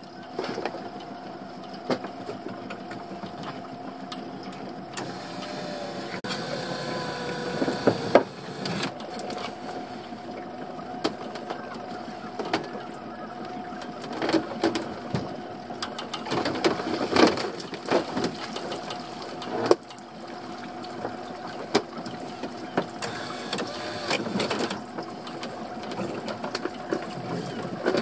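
Boat's pot hauler winding a rope in over the side with a steady mechanical hum, with repeated knocks and clatter as the line and gear come aboard. Near the end a lobster pot is lifted in.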